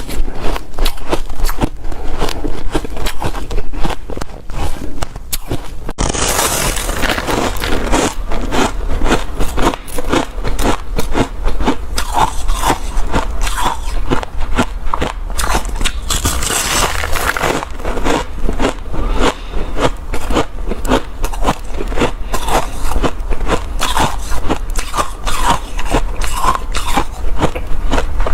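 Close-miked crunching and chewing of hard shaved ice and crushed ice taken in big bites: dense, continuous crackling crunches with short squeaky notes among them.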